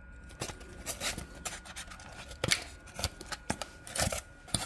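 Styrofoam packaging insert rubbing and creaking in the hands as a small HO-scale model locomotive is worked out of it, with a string of short, irregular scrapes and clicks.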